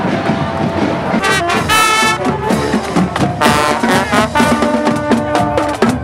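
Parade brass band playing with drums: loud brass notes come in about a second in, ending in held chords.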